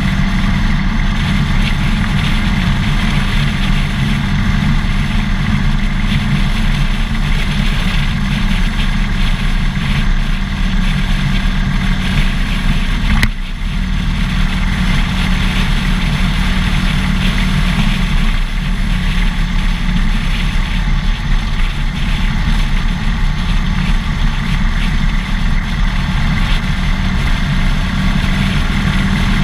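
Harley-Davidson Dyna Fat Bob's air-cooled V-twin engine running steadily under the rider, with a brief dip about 13 seconds in.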